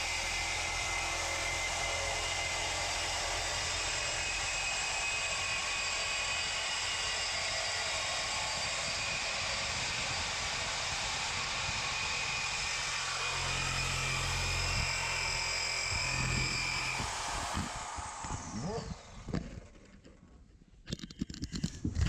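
Reciprocating saw cutting through a truck's exhaust pipe, running steadily with a high motor whine. Near the end the saw stops and the whine falls away as the motor spins down.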